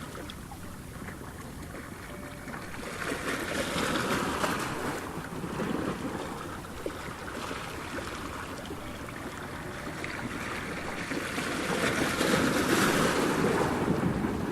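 Ocean surf: waves breaking and washing in, swelling twice, about three seconds in and again near the end.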